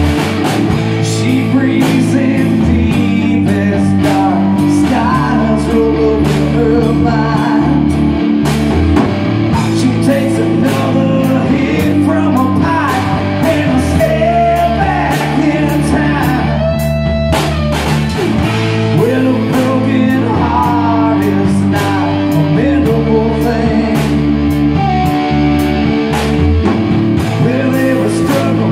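A rock band playing live: electric guitar, bass and drum kit with a singer's voice over them. The drums keep a steady beat.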